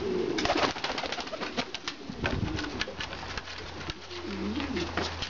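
Pomeranian pouter pigeons cooing, with a flurry of sharp wing claps and flapping from about half a second in, lasting some three seconds; the cooing comes back near the end.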